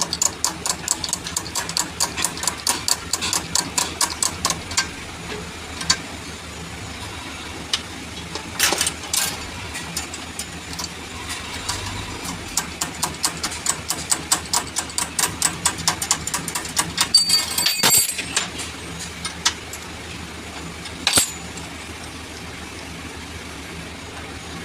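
Runs of quick sharp metallic clicks or taps, about four a second, with a few louder single knocks, over a steady low engine hum.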